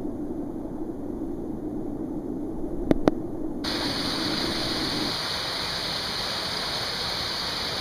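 Rushing water of a small waterfall pouring over rocks, dull and muffled at first, with two sharp knocks close together about three seconds in. A little later the sound changes abruptly to a brighter, hissier rush of water cascading down a narrow gorge.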